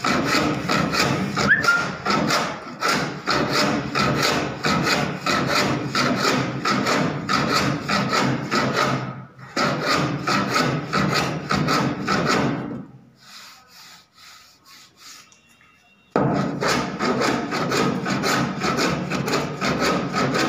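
Rapid back-and-forth scraping strokes of a hand tool cutting hardened wood filler of adhesive and sawdust flush with a wooden door frame. The strokes stop for about three seconds about two-thirds of the way through, then start again.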